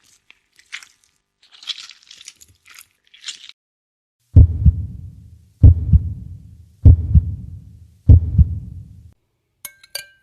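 Scratchy crunching noises, then four heavy, deep thuds about 1.2 seconds apart, each dying away over about a second: stock sound effects.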